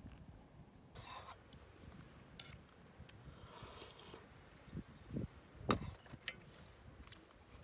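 Metal camping cups and a spoon knocked and set down on a camp table: a few scattered light knocks and clinks, the loudest about three-quarters of the way in, over a low rumble of wind on the microphone.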